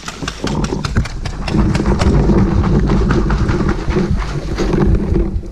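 Paintball markers firing, a quick run of sharp pops several times a second, over a loud low rumble of wind and handling noise on a body-worn camera as the player moves.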